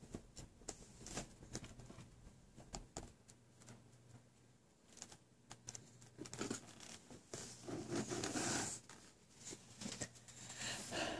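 Faint clicks, knocks and rustling of small toys being handled in a wooden toy bin, with a louder rustle about eight seconds in.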